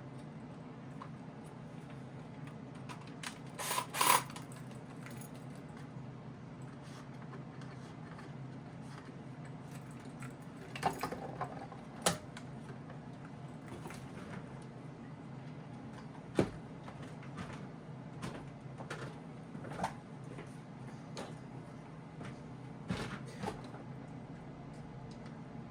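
Scattered clicks, rattles and knocks of hands working with small hardware and wiring, the loudest a short rattling cluster about four seconds in, over a steady low hum.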